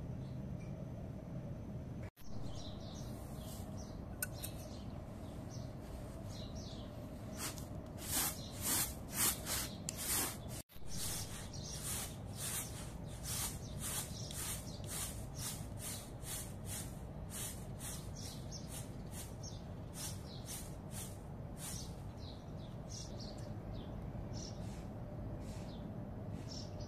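Flour being sifted by hand through a large round sieve: rhythmic swishing shakes, about two a second, strongest about a third of the way in and fading toward the end.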